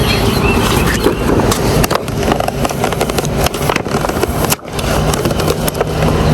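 EGO battery lawn mower being pushed over hard ground, its wheels rolling and rattling with many small clicks and knocks. The rolling stops briefly about four and a half seconds in, then goes on.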